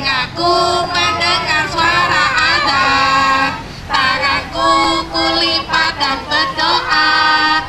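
Young children and a woman singing a song together, held notes in sung lines with a short break between phrases a little past the middle.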